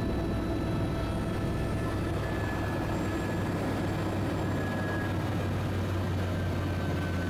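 Eurocopter EC130 tour helicopters running on the ground: a steady turbine whine over the low hum of the turning rotors.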